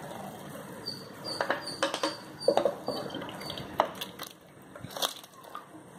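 Spoon knocking and scraping against a non-stick pan as cooked chicken pieces are scooped out and dropped into a pot of gravy: a string of sharp, uneven taps and clinks.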